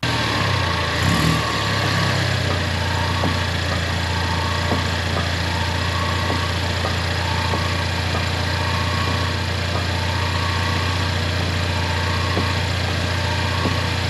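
A Ford Mustang driving, heard from a camera mounted at the front wheel beside the suspension: a steady low hum over road noise, with a faint tone pulsing about once a second and a few faint ticks.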